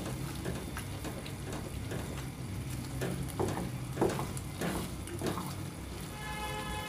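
A spatula stirring and scraping gajar ka halwa (grated carrots cooked down in milk with ghee and khoya) around a steel kadai as it is roasted. The scrapes come as short knocks about every half second in the second half, over a steady low hum.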